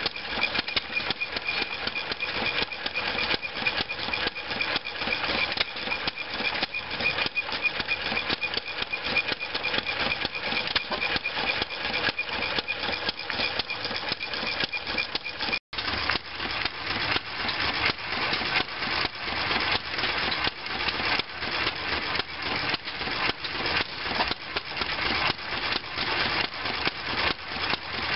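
Cushman binder engine, a small single-cylinder gas engine, running steadily with a fast, even putt-putt of firing beats.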